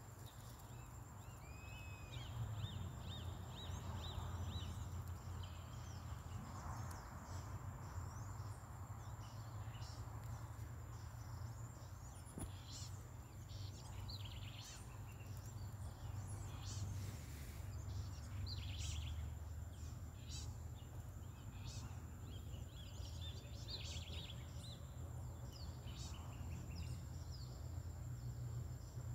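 Outdoor ambience: birds chirping and calling in many short notes, over a steady high-pitched whine and a low rumble.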